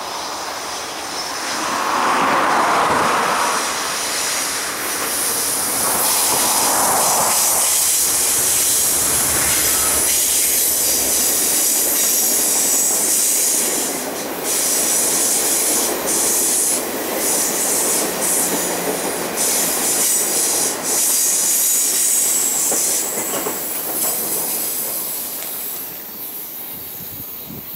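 A passenger train hauled by Amtrak P42DC diesel locomotives passes on a curve. The locomotives' rumble swells twice in the first several seconds, then the cars' steel wheels roll by with a continuous high-pitched flange squeal. The sound fades as the last car clears, near the end.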